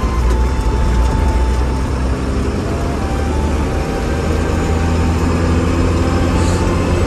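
Bus engine running with a steady, loud low rumble of engine and road noise, as heard from inside the moving bus.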